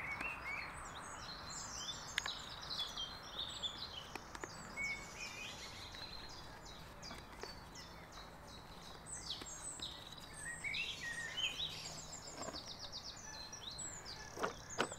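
Songbirds chirping and singing in short, quick, high trills over a faint outdoor background hiss; a couple of light knocks near the end.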